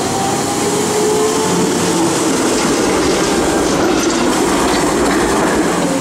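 Melbourne Z1-class tram rolling past, its steel wheels clattering over the rails. About four seconds in there is a cluster of clicks and a deeper rumble as a car passes close by.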